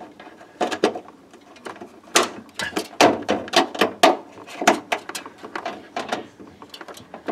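Irregular clicks and small knocks of a metal ground clip being fitted by hand onto the metal frame beside a refrigerator's evaporator coil, a dozen or more sharp taps spread unevenly through the moment.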